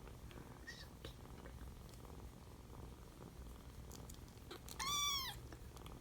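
Young kittens, about four to five weeks old, purring steadily, with one short high mew near the end that rises and then falls in pitch.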